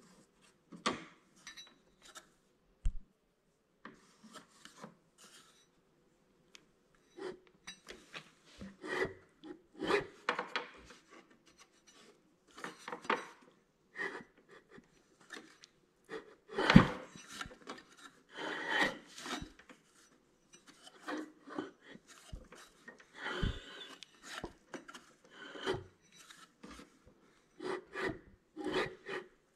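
Irregular short bursts of rubbing and scraping, with a few dull bumps; the loudest bump comes about seventeen seconds in.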